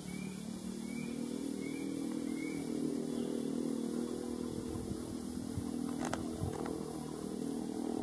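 A motor engine, most like a motorcycle, runs steadily as a low drone and grows a little louder after a couple of seconds. Over it a small bird gives four short rising chirps in the first three seconds, and there are two sharp clicks around six seconds in.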